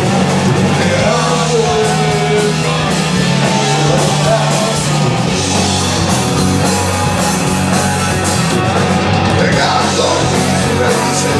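Loud live rock music with distorted guitars and drums, and a voice singing or shouting along.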